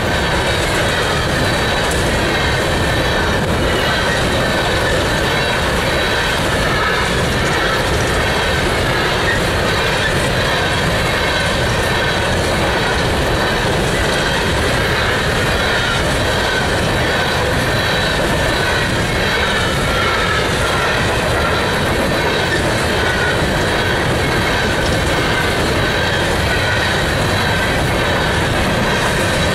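Empty coal cars of a long freight train rolling past, a steady rattle and rumble of steel wheels on rail with no let-up, and a faint high squeal wavering in and out above it.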